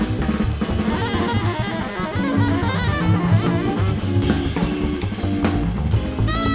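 Small jazz group improvising, with a busy drum kit at the front, double bass notes underneath and electric guitar lines. Near the end a saxophone comes in with a long held note.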